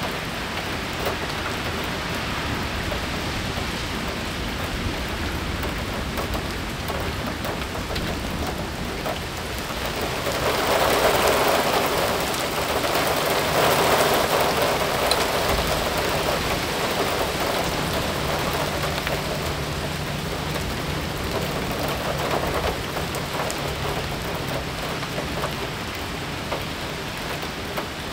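Heavy thunderstorm rain pelting a flooded sidewalk and lawn, drops splashing into standing water hard enough to raise bubbles. The downpour grows heavier about ten seconds in for several seconds, then eases back.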